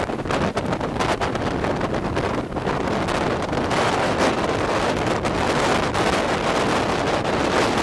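Strong typhoon wind buffeting the microphone in uneven gusts, over the rush of heavy surf.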